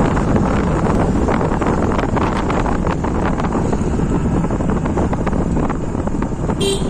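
Wind buffeting the microphone on a moving two-wheeler, over the steady low rumble of its engine. A brief high-pitched sound comes near the end.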